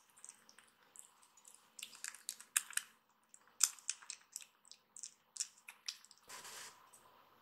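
Kitten eating soft weaning food from a bowl: wet, irregular smacking and lapping clicks, several a second, busiest in the middle. A brief rushing noise about six seconds in.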